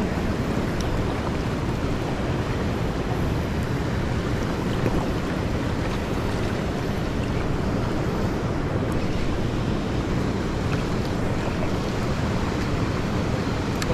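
Steady rush of a fast-flowing river, with wind buffeting the microphone and making a heavy low rumble.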